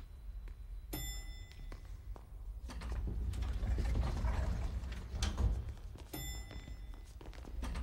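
Movement in a large marble lobby: knocks and thuds with mechanical door sounds over a low rumble. A short ringing chime sounds twice, about a second in and again about six seconds in.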